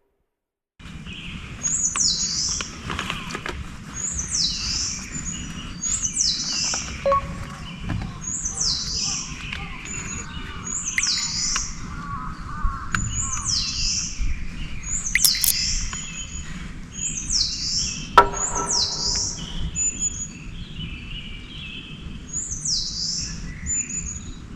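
Birds calling outdoors: one bird repeats a short, high, falling call about every second and a half, while other birds chirp more softly below it, over a steady low rumble. It starts about a second in, after a brief silence, and a few sharp clicks come through.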